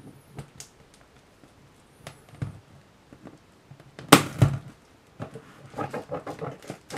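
Hands handling a cardboard shipping box: a few light taps, a loud thump about four seconds in, then a quick run of scratching and rustling on the cardboard.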